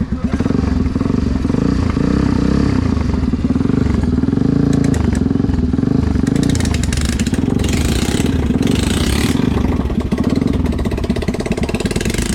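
Tekken 250cc motorcycle engine running: evenly pulsing at idle, then revved up just after the start and held at raised revs. A hissing noise joins in for a few seconds in the middle.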